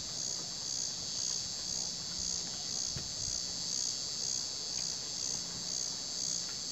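A steady chorus of night insects trilling high up, swelling gently and evenly in level all the way through.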